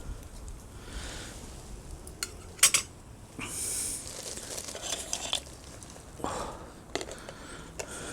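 Metal camp cookware and utensils clinking and scraping while a pancake is handled in the pan, with a sharp clink about two and a half seconds in and a short hiss about a second later.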